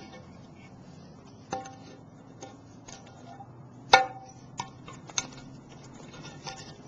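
Kershaw spring-assisted folding knife chopping into a hard stick. There are four or five sharp knocks, the loudest about four seconds in, and each leaves a brief metallic ring. Some force is needed to cut.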